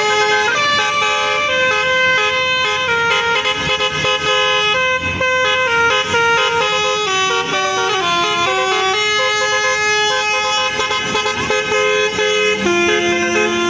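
Bus 'telolet' horn, a multi-tone air horn, playing a continuous melody of short held notes that step up and down in pitch. Near the end a lower tone rises and then falls away.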